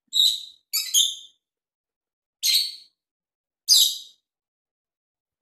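Small pet parrot giving short, sharp, high-pitched chirping calls: three in quick succession in the first second or so, then one about two and a half seconds in and another near four seconds.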